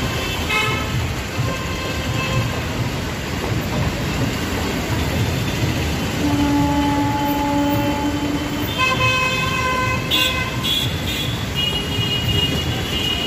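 MEMU electric train running past, a steady rumble of its coaches on the track. Horns toot over it: one long low note from about six seconds in, then several higher notes in the last few seconds.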